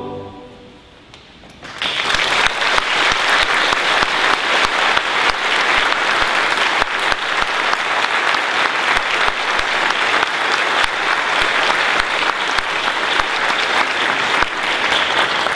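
The last chord of a high-school boys' choir fades out, and after a short lull the audience starts applauding about two seconds in, clapping steadily on.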